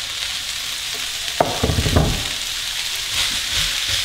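Diced red onions and garlic sizzling in a hot cast-iron skillet, a steady hiss throughout. About one and a half to two seconds in, a wooden spatula knocks and scrapes against the pan as the onions are stirred.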